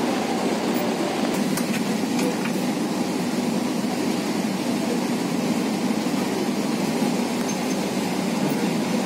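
Kochi Metro train running on its elevated track, heard from inside the passenger car: a steady rolling rumble and hiss, with a few faint clicks about two seconds in.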